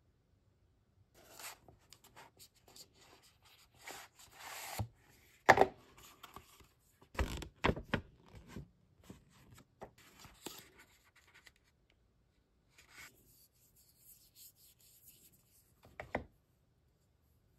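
Stylus tip scratching and tapping on an iPad screen in irregular strokes, with a few sharp knocks, the loudest about five seconds in.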